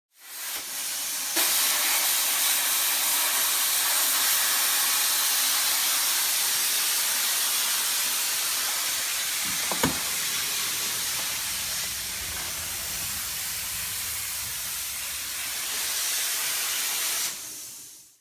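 Plasma cutter cutting through rusted body steel: a loud, steady hiss of air and arc, with a single short knock about ten seconds in.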